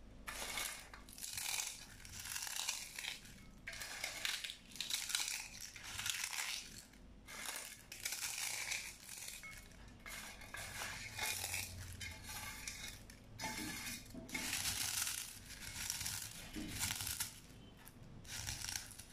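Crisp fried rice chips crackling and crunching as a hand crushes them into small pieces in a glass bowl, in a run of short crunchy bursts with brief pauses between them.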